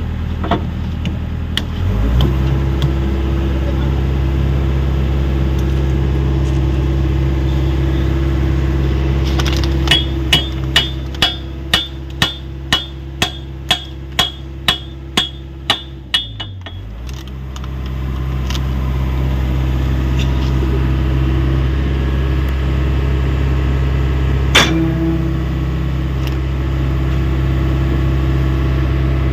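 Hyundai 85A excavator's diesel engine running, picking up about two seconds in. Midway comes a run of about a dozen sharp, ringing metal clinks, about two a second, while the engine runs lower and dips briefly. Later there is one loud metal clank as the engine picks up again.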